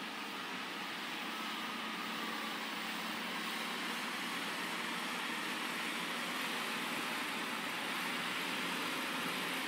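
Caterpillar 627 wheel tractor-scrapers running under load as they fill their bowls with dirt: a steady engine drone that grows slightly louder.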